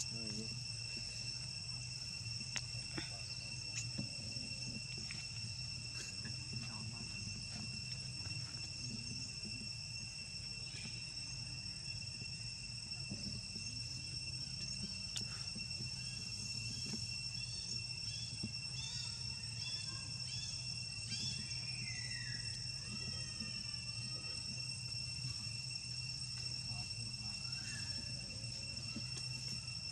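Steady drone of insects: two continuous high-pitched buzzing tones held at fixed pitches, over a low hum. A cluster of short chirping calls and a falling call stands out about 16 to 22 seconds in.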